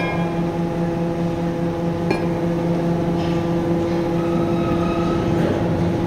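Steady hum of coal-handling plant machinery in a wagon tippler shed, held on a few fixed tones, with a sharp metallic clink at the start and another about two seconds in.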